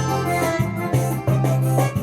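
Yamaha PSR-SX600 arranger keyboard playing with its built-in voices: a melody and chords over a bass line that changes note about every half second, with percussion strokes from the accompaniment.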